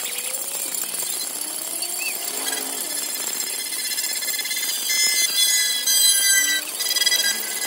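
Sped-up, pitch-raised street sound of a slow car parade: a high, jittery clatter of noise, with car horns sounding long steady tones from about five seconds in.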